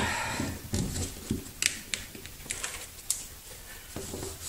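A plastic fire extinguisher bracket being handled against a wall: a short scraping rustle, then scattered light clicks and taps as it is held in place and its mounting hole is marked with a thin tool.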